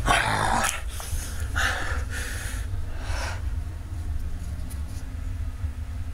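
Handling noise from a small handheld camera: a steady low rumble, with three or four short bursts of rustle in the first few seconds as the camera is moved about.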